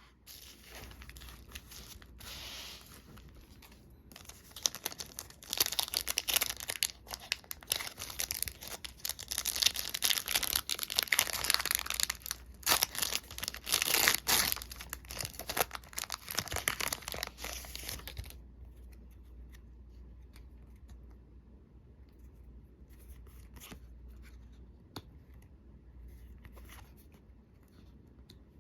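Magic: The Gathering booster pack foil wrappers being torn open and crinkled, a dense crackling that is loudest from about five to eighteen seconds in. After that come only faint light ticks and rustles of handling.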